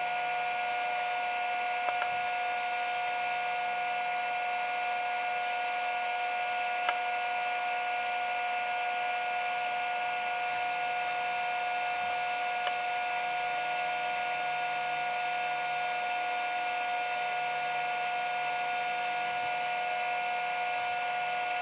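Steady electronic hum made of several held tones, the strongest of them mid-pitched, unchanging in level; it starts and cuts off abruptly, with a couple of faint clicks.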